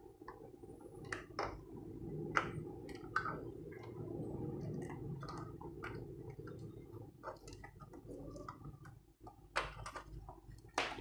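Scattered light clicks and taps of plastic cable connectors and cooler parts being handled inside a PC case, over a steady low hum.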